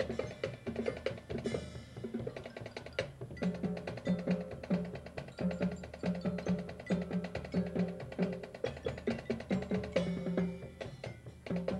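Marching band playing its field show in a percussion-heavy passage: quick drum and mallet strikes over repeated low notes.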